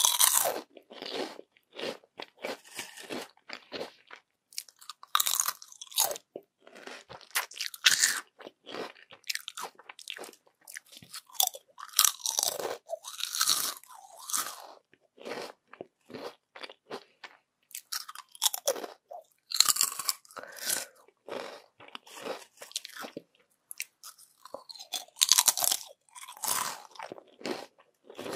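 Close-miked crunching and chewing of thin, crispy yam chips: sharp crackling bites come in irregular clusters, with quieter chewing in between.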